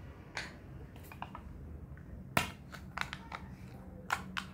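A screw-top jar of herbal powder being opened by hand: a series of short sharp clicks and crinkles from the lid and seal, the loudest about two and a half seconds in.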